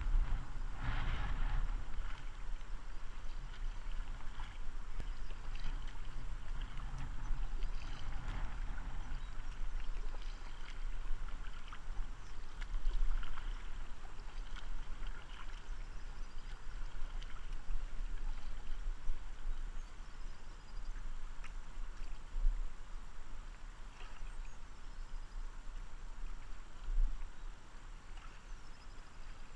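Kayak paddling on a river: uneven splashes from the paddle blades and water gurgling along the hull, over a steady low rumble.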